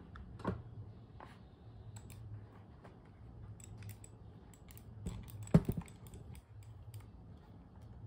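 Scattered light clicks and taps from a wireless laser mouse being clicked and moved, with one louder knock about five and a half seconds in, over a faint low steady hum.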